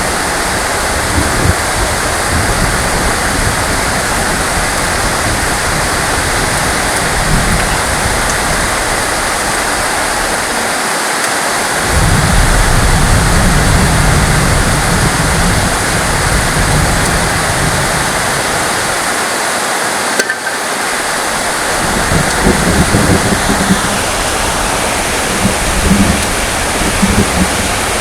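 Heavy rain falling steadily, with a low rumble underneath that swells and briefly drops away twice.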